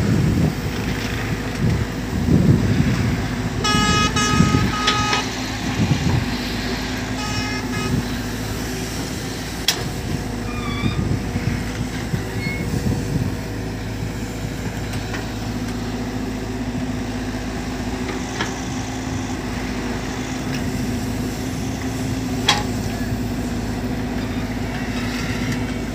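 Cat 313 tracked excavator's diesel engine running steadily under working load as it digs and loads sand. A vehicle horn honks twice, a longer blast about four seconds in and a short one about seven seconds in, and a couple of sharp clacks sound later.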